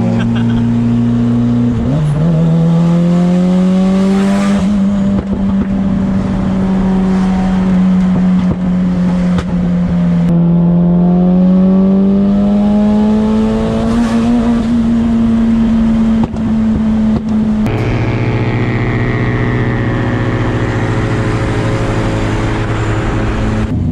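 Mitsubishi Eclipse GSX's turbocharged 4G63 four-cylinder engine heard from inside the cabin while cruising on the freeway. The engine note drops sharply about two seconds in, then falls and rises slowly with the throttle, and changes abruptly to a different, steadier engine drone near the end.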